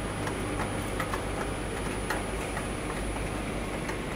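Wave soldering machine running: a steady mechanical hum and rush with irregular light clicks, about two or three a second, from its finger-clamp conveyor chain, and a thin high whine.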